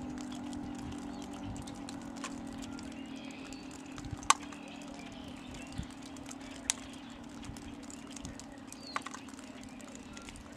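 Federal Signal 3T22 outdoor warning siren sounding a low, steady tone that slowly fades as the siren winds down. Short bird chirps and a few sharp clicks, the loudest about four seconds in, sound over it.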